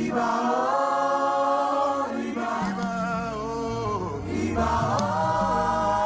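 Gospel worship singing: voices holding long, drawn-out notes that glide between pitches, with low bass notes joining about two and a half seconds in.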